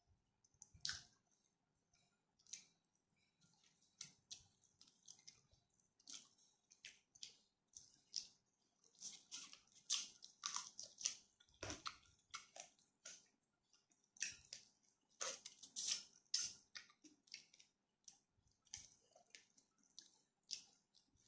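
Close-miked chewing and mouth sounds of a person eating rice with spicy stir-fried chicken: a run of short, irregular smacks and clicks, busiest in the middle.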